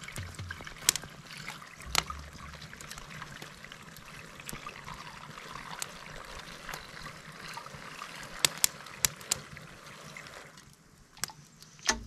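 Hot water poured from a stainless steel pot into the narrow filler opening of a camp shower bag: a steady trickle, with a few sharp clicks along the way. The pour stops about ten and a half seconds in.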